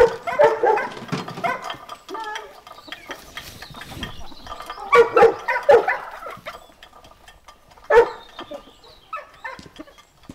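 A dog barking in short bouts: a run of barks at the start, another about five seconds in, and a single sharp bark at about eight seconds.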